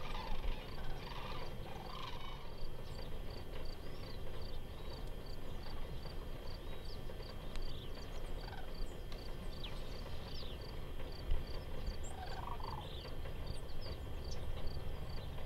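Sandhill cranes calling from a flock, with rolling calls a couple of times, about two seconds in and again near the end. Scattered short high chirps of small birds, a faint high ticking about two or three times a second, and a steady low rumble lie under them.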